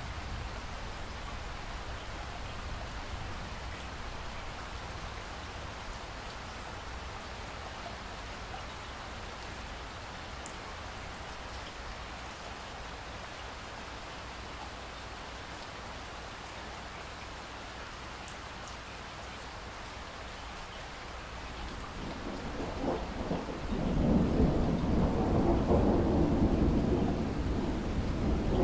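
Steady rain falling. About three-quarters of the way through, a low rumble of thunder builds and becomes loud, continuing to the end.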